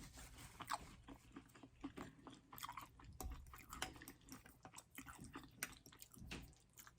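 A person chewing food with the mouth, giving quiet, irregular wet clicks and smacks, several a second.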